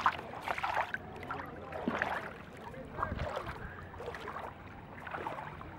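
Feet wading in shallow sea water, with irregular small splashes and sloshes, over faint voices in the background.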